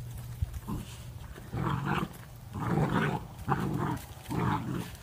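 A dog growling in a run of rough, gruff sounds, each about half a second long and roughly one a second, starting about a second and a half in.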